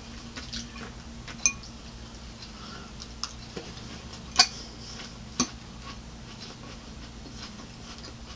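A handful of sharp clicks, a second or so apart, of a metal fork striking a glass salad bowl, over a faint steady hum.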